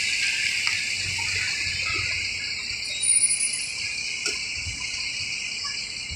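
Steady high-pitched insect chirring, with an intermittent low rumble from a bus engine as the coach pulls away.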